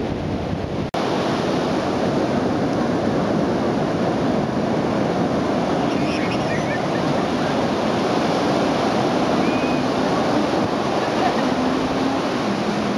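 Surf breaking on a beach in a strong wind, the wind buffeting the microphone, making a dense, steady rush. The sound cuts out for an instant about a second in.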